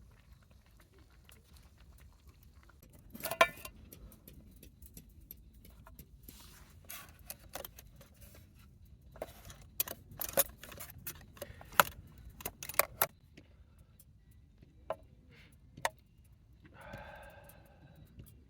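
Small metal items clinking and rattling as they are handled: scattered sharp clinks, busiest in the middle, with a brief squeaky scrape near the end.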